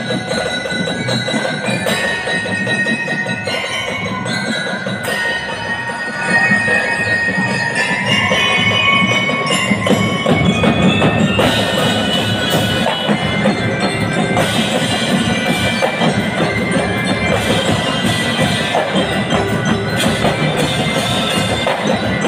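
Drum and lyre band playing: bell lyres and mallet instruments carry a bright melody over snare, tenor and bass drums. The music gets louder about six seconds in.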